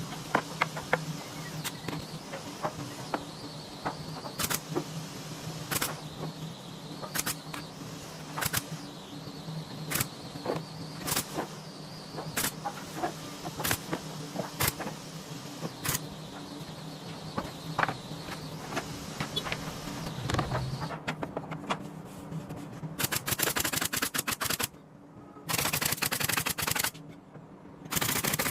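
Woodworking tool noise: sharp knocks at a steady pace of about one every second and a quarter over a low steady hum. Near the end come two bursts of very rapid rattling clicks.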